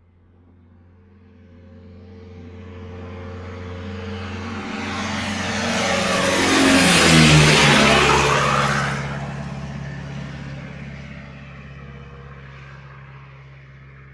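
A car driving past: its engine grows steadily louder as it approaches, peaks about halfway through with the engine note dropping in pitch as it goes by, then fades away.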